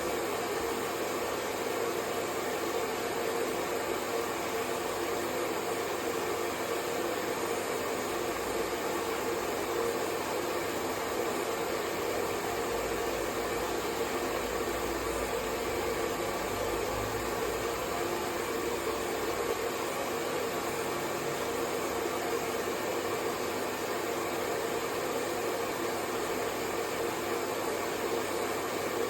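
Hair dryer blowing steadily, a continuous even rushing noise with a hum strongest in the mid-low range and no change in speed.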